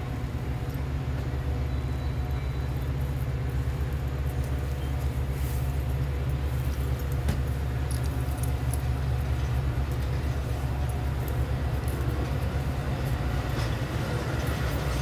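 Diesel locomotive running with a steady low rumble, with a few faint clicks and rattles here and there.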